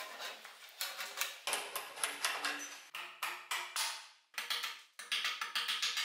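Small hatchet chopping side shoots off a fresh acacia branch: quick repeated hacks of steel into wood, about four a second, with a brief pause a little past the middle.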